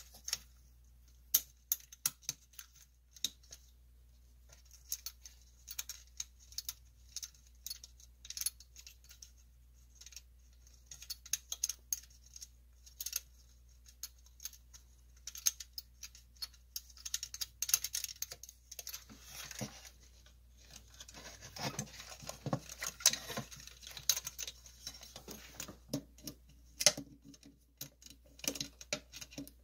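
Hands reassembling a plastic magnifying-lamp base: scattered small clicks and taps of plastic and metal parts as switches are seated and their mounting nut is worked with pliers. The clicks come thicker, with rustling and clatter, in the second half.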